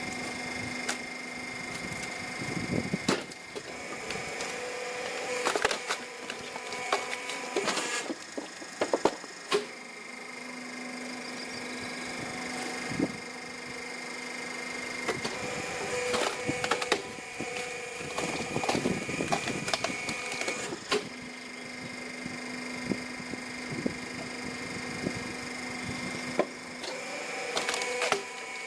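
Hydraulic log splitter working: its pump runs with a steady whine that shifts pitch in repeating cycles. Bunches of sharp cracking and splintering come as the blade forces logs apart.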